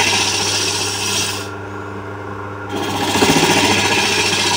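Hook tool cutting inside a small cup spinning on a wood lathe, hollowing from the centre. The scraping cut stops about a second and a half in, leaving only the lathe's steady hum, and starts again about a second later.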